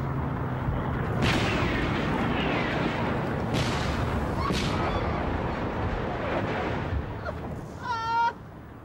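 Battle soundtrack of an artillery barrage: a shell whistles down about a second in, and sharp explosions and gunfire go off over a dense, steady rumble of combat. A brief high-pitched cry comes near the end.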